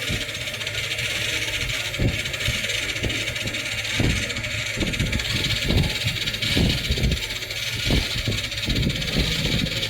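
Metal lathe running, a steady motor hum with a hiss over it. Irregular low knocks come in from about two seconds in.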